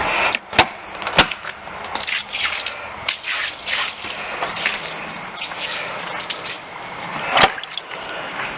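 Water running and splashing across a freshly sealed deck surface and draining off it during a water test. Three sharp clicks: two about a second in, one near the end.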